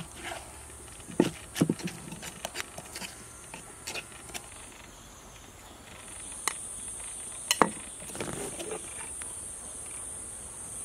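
A spoon knocking and scraping against a clay mortar as shredded green mango salad is tossed, with a few sharp clacks. Insects buzz steadily in the background, louder in the second half.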